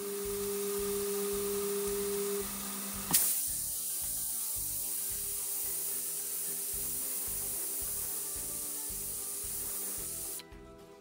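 Prestige Popular pressure cooker whistling: it has reached full pressure and is venting through its weight valve. A steady low tone comes first, then a sharp click about three seconds in, then a loud, steady hiss of escaping steam that cuts off suddenly near the end.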